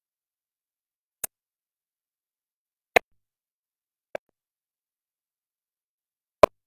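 Four short, sharp clicks at uneven intervals against otherwise dead silence, the second and last the loudest.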